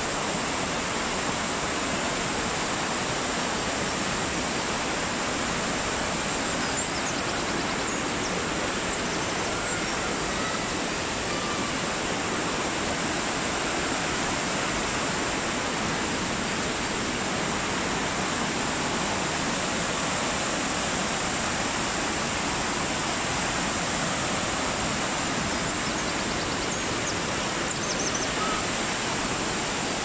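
Small waterfall cascading over rocks in a woodland stream: a steady, even rush of white water.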